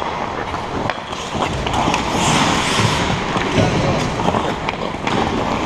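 Ice hockey play: skates scraping and carving on the ice, with several sharp knocks from sticks and puck, in a large echoing rink.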